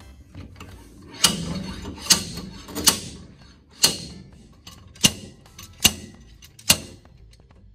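Slide hammer striking back against its stop seven times, sharp metal-on-metal blows that each ring briefly, pulling a Dana 44 rear axle shaft and its pressed-in bearing cup out of the axle tube.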